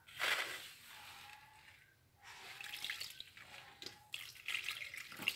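Water poured in short splashes from a plastic container into a large bowl of flour, with hands working it into bread dough.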